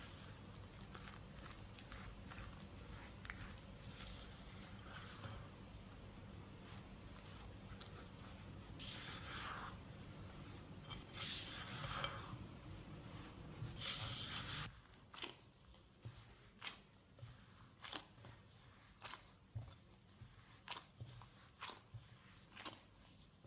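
Quiet stirring and scraping of a silicone spatula through flour and wet dough in a glass bowl, with a few louder swishes, over a low steady hum. About two-thirds of the way in the hum stops, and short squelching and rustling sounds follow from a plastic-gloved hand kneading the sticky dough.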